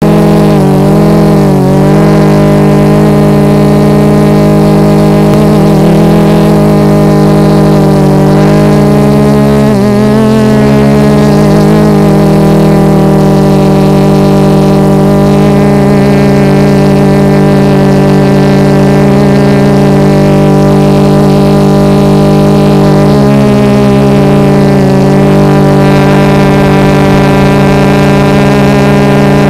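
Electric motors and propellers of a Tarot 650 multirotor drone, heard from its onboard camera: a loud, steady hum whose pitch dips and recovers briefly about a second in, near ten seconds and again a little past twenty seconds as the drone manoeuvres.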